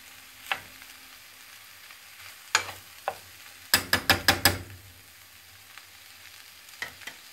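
Metal spoon stirring buckwheat in a non-stick frying pan over a faint sizzle of frying, with scattered clicks of the spoon against the pan and a quick run of five sharp knocks about four seconds in. Two lighter clicks come near the end.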